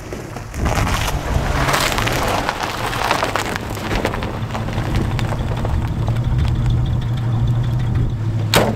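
1949 Frazer's flathead six running steadily as the car rolls slowly over packed snow, the tyres crunching. A single sharp click near the end.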